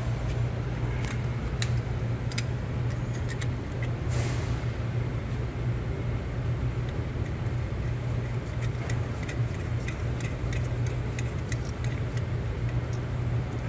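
Steady low hum of shop background noise, with scattered light metallic clicks and taps as an idler pulley and its nut are fitted by hand onto a metal supercharger bracket. There is a short hiss about four seconds in.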